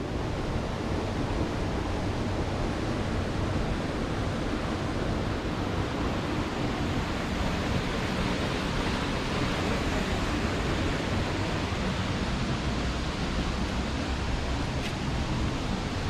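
Steady rush of a small waterfall spilling into a rock pool, an even, unbroken wash of water noise.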